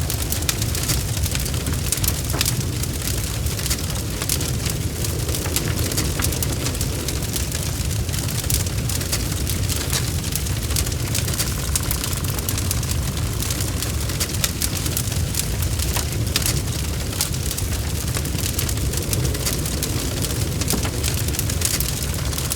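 Wood fire crackling, with many small pops over a steady low rumble.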